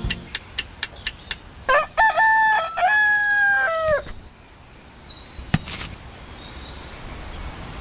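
A rooster crows once, a cock-a-doodle-doo lasting about two seconds. Before it comes a quick run of sharp clicks, and a single sharp click follows a little later.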